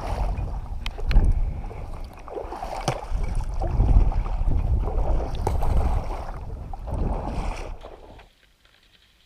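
Wind rumbling on the microphone over water sloshing and splashing, with scattered knocks; the sound cuts off abruptly near the end.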